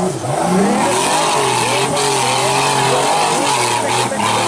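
Formula Offroad car's engine revving hard, its pitch swinging up and down over and over, with brief drops in throttle just after the start and again about four seconds in.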